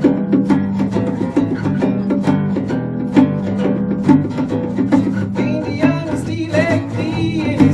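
Live band playing a song: strummed acoustic guitar over electric bass and keyboard. A voice starts singing about five and a half seconds in.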